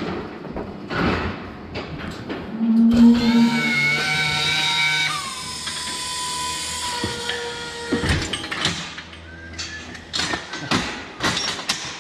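A motor whines for about five seconds, its pitch stepping down partway through, amid the knocks and metal clanks of a cattle hoof-trimming crush.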